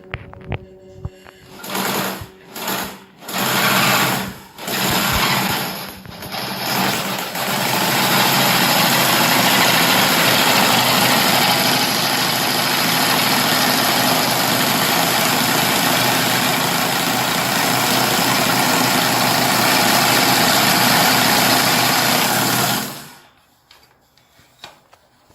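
Scroll saw running, its blade reciprocating: a few short bursts of a second or so in the first seven seconds, then a steady run of about fifteen seconds that cuts off suddenly near the end.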